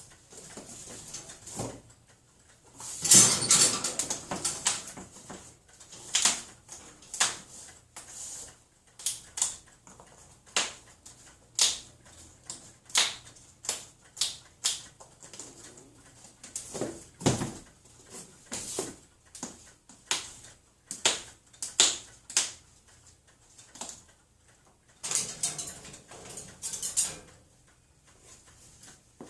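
Cage doors being banged and rattled by a pet, a long irregular run of sharp clanks and clatters, densest about three seconds in and again near the end.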